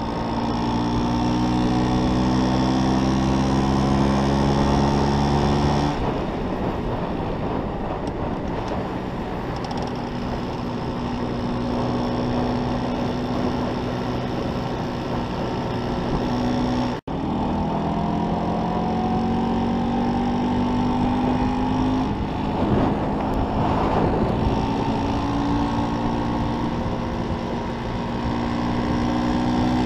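Vintage Vespa's two-stroke scooter engine running at road speed, heard from the rider's seat with wind rushing over the microphone; the engine note holds steady and climbs a few times as the scooter accelerates.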